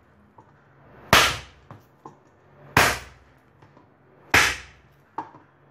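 Parotta dough slapped down hard into a stainless steel bowl three times, about a second and a half apart, with a smaller knock near the end. The oiled maida dough is being beaten to make it soft.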